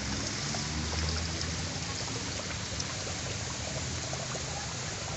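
Steady rush of running water, a continuous even hiss with a low hum beneath it.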